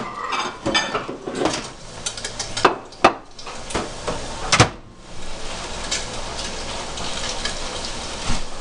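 A plate being lifted out of a microwave and set down on a counter, with scattered clatter and several sharp knocks in the first half, one of them the microwave door being shut. After that, a steady sizzle of bacon cooking in a skillet.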